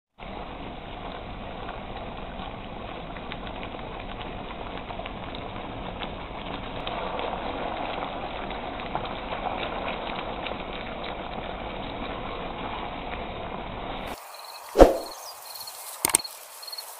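Chicken wings sizzling and bubbling in a thick soy-sauce gravy in a wok, a steady sizzle with faint ticks, a little louder midway while a spatula stirs. About fourteen seconds in the sizzle cuts off, followed by a loud whoosh and then a couple of clicks.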